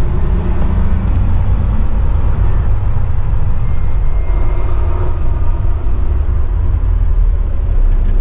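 Volvo truck's diesel engine running with a steady low rumble, heard from inside the cab.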